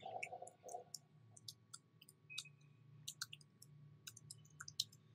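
Faint, irregular clicking of computer keyboard keys as code is typed.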